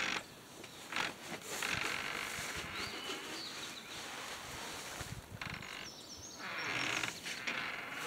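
Woven plastic feed sacks rustling and crinkling as they are handled and emptied, in two long stretches with a few short clicks.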